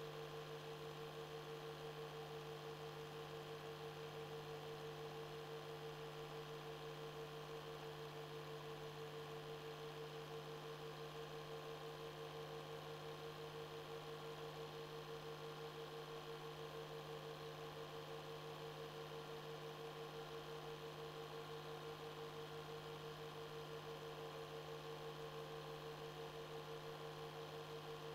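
Steady electrical hum with a constant mid-pitched tone over faint hiss, unchanging throughout.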